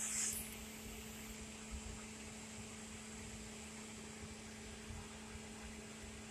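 Small 12-volt computer cooling fan, taken from an Xbox 360, running with a faint steady hum. A brief crinkle of a plastic bag held in its airflow comes right at the start.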